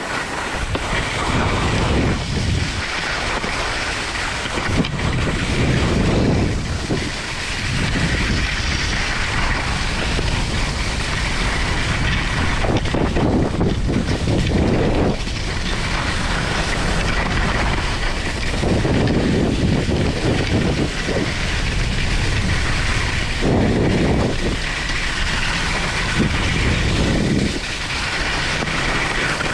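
Skis sliding and scraping over packed snow on a downhill run, a continuous rumbling hiss that swells every few seconds as the edges bite in the turns, with wind rushing over the action-camera microphone.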